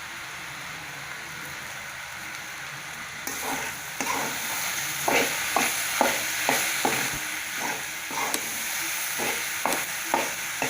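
Okra, onion and tomato sizzling in oil in a cooking pan, the sizzle growing louder about three seconds in. From about five seconds in, a spatula stirs the mix in quick repeated strokes, scraping against the pan.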